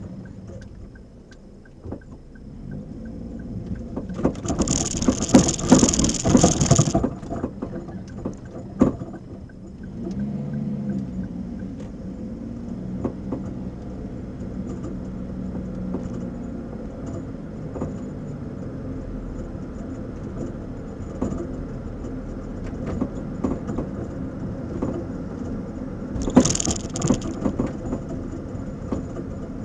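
Car on the move with coilover suspension knocking and clicking, many short irregular knocks over the running noise: an abnormal noise from the coilovers. Two loud bursts of hiss come about four seconds in and again near the end.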